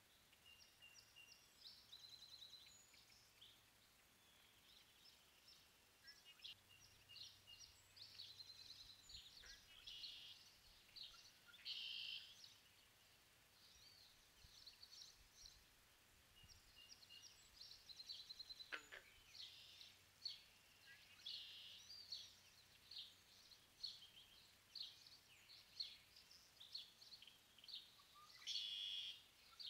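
Faint birds chirping and calling repeatedly, many short high notes with a few louder calls; about two-thirds of the way through one sound sweeps sharply down in pitch.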